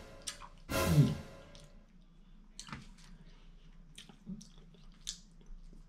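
A person chewing food at a meal, with small clicks of a metal fork against the plate. A short voiced sound from the eater comes about a second in.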